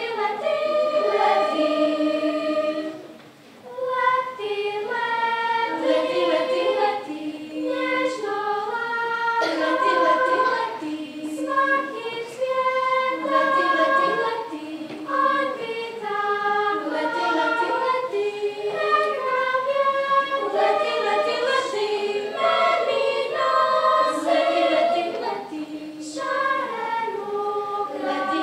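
Children's choir singing in several voice parts, with a brief break in the singing about three and a half seconds in.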